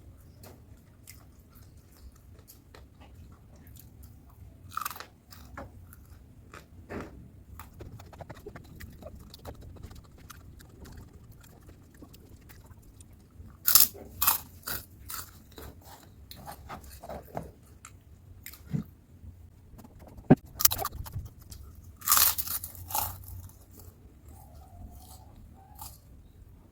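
Close-miked biting and chewing of crunchy food: soft chewing clicks throughout, with louder crunching bites about halfway through and again near the end.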